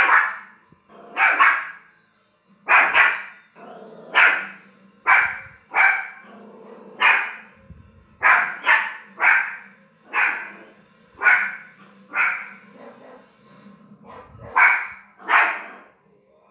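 A dog barking over and over in short, sharp barks, about one a second with a few brief pauses.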